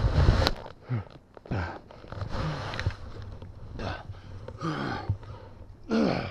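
A skier who has fallen in deep powder snow grunts, groans and gasps several times, each sound short and dropping in pitch, while snow rustles against the camera. A loud rush of wind on the microphone stops about half a second in.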